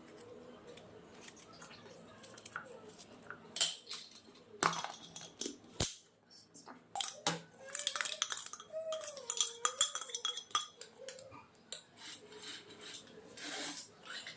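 Dishes and cutlery clattering: a quick run of clinks and knocks of utensils and pots against each other, starting a few seconds in.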